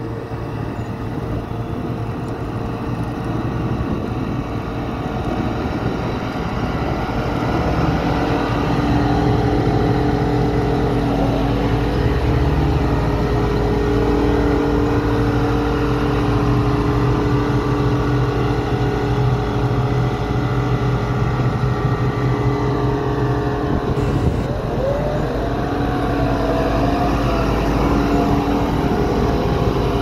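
Sakai SV500 single-drum vibratory roller's diesel engine running steadily as the roller compacts soil, growing louder over the first several seconds as it comes close.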